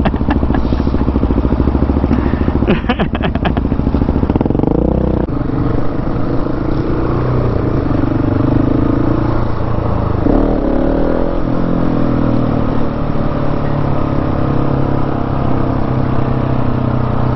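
Large single-cylinder supermoto motorcycle engine running under way. Its pitch rises about four seconds in and drops off at a gear change, rises and falls again around ten seconds, then holds steady.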